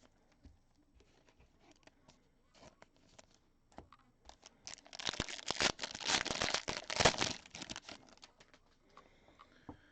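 Trading card pack wrapper handled with a few light clicks, then torn open and crinkled in about three and a half seconds of loud crackling, peaking near the middle and dying away about two seconds before the end.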